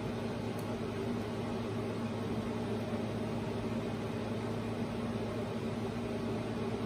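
Steady mechanical hum with an even hiss beneath it, unchanging throughout.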